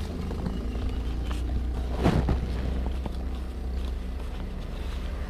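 A Honda Supra motorcycle's single-cylinder four-stroke engine idling steadily, with a brief handling noise about two seconds in.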